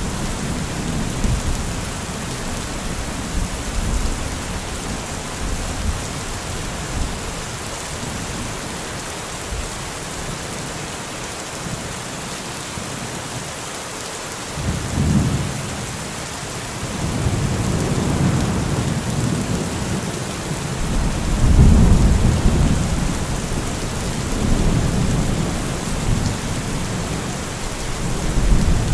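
Steady heavy rain hissing, with thunder rumbling at intervals: low rolls swell about halfway through and again twice in the second half, the loudest a little past two-thirds of the way in.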